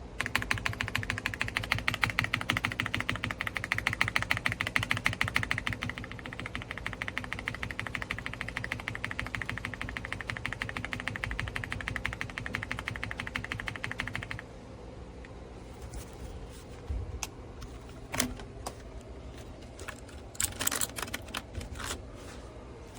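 Fast typing on an AULA F75 Pro mechanical keyboard with pre-lubed Reaper switches and PBT keycaps, a dense run of key clicks that slows about two-thirds of the way through to scattered single keystrokes and short bursts.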